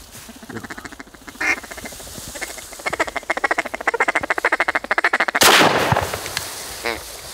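Rapid mallard quacking and chatter, about ten notes a second, then a single loud shotgun blast about five and a half seconds in that rings off briefly.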